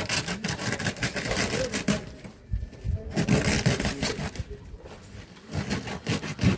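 A mason's hand tool scraping over building stone in quick, repeated strokes, coming in bursts with a short pause about two seconds in.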